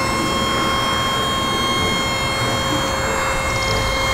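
Truck-mounted aerial work platform running its hydraulics as the boom moves: a steady high whine over the truck's engine noise.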